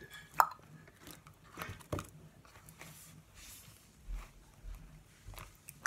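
Hand-worked slime being squeezed and stretched between the fingers, giving a handful of sharp sticky clicks and pops, the loudest about half a second in.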